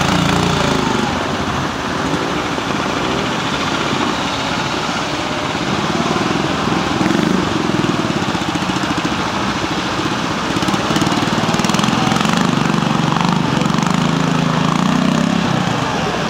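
BSA B40 single-cylinder four-stroke trials motorcycle engine running at low revs, its pitch rising and falling as the throttle is worked through the section. The rush of a stream runs underneath.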